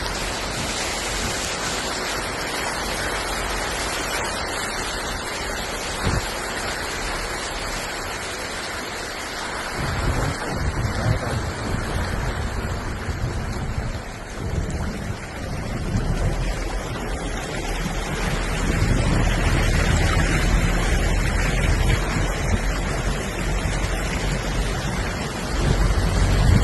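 Hailstorm: a steady rush of falling hail, with wind buffeting the microphone in heavy gusts from about ten seconds in.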